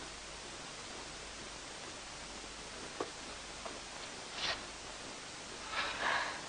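Steady hiss of an old television soundtrack, with a faint click about three seconds in and soft rustling near the end as a wooden spindle-back chair is pulled out and sat in.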